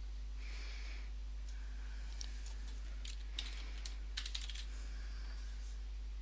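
Computer keyboard typing: a scattered run of light keystrokes in small clusters, over a steady low hum.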